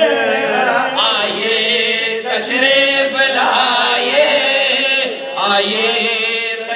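A man chanting devotional verse into a microphone, with melodic, drawn-out phrases and short breaks between them.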